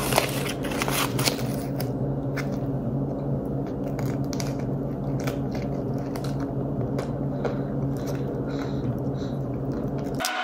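Foil wrapper of a Klondike ice cream bar crinkling as it is peeled back, then bites and chewing into the bar's chocolate shell, over a steady low hum.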